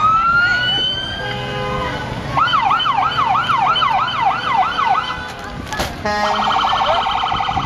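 Emergency vehicle's electronic siren run through its tones: a rising wail at the start, then a fast yelp sweeping up and down about three times a second, and after a click about six seconds in, a rapid warble.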